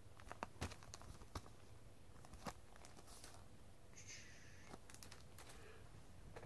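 Faint crinkling and scattered clicks of a 45 rpm single in a clear plastic outer sleeve being handled and turned over, with a short plastic rustle about four seconds in.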